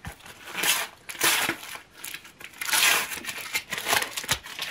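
A Panini sticker packet's wrapper being torn open and crinkled in the hands, in several short bursts.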